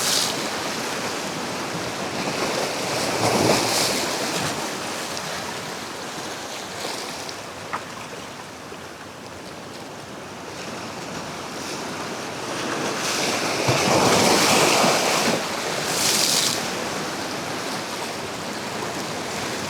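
Sea waves washing against jetty rocks, with wind on the microphone. The surf swells briefly about three seconds in and again, longer and louder, about two-thirds of the way through.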